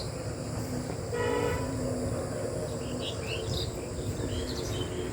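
Outdoor field ambience: a brief horn-like tone about a second in, fading into a faint steady hum, then small birds chirping from about halfway, over a low steady rumble.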